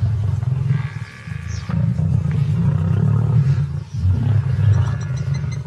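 Several lions growling at one another as they crowd and feed on a kill: low, rumbling growls in long bouts that break off briefly about a second in and again near four seconds.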